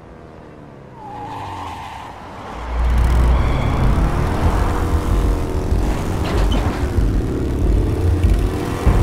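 Motorcycle engine revving and accelerating hard. It starts softly about a second in, then gets loud about three seconds in, with the pitch rising and falling as it revs.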